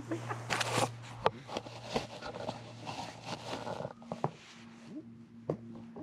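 Dry straw rustling and crackling right against the camera microphone: a dense run of sharp crackles and scrapes that thins out after about four seconds.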